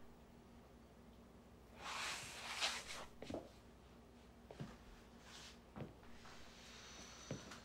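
Quiet room tone with a low steady hum. A brief rustle of clothing swells up about two seconds in, then comes a slow run of four soft footsteps on a wooden floor, a little over a second apart.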